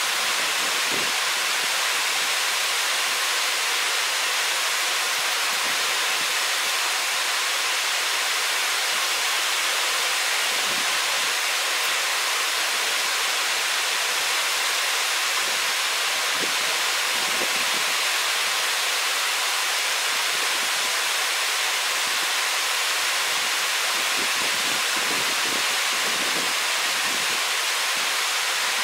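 Steady, even rushing of running water, as from a mountain torrent, with no other sound standing out.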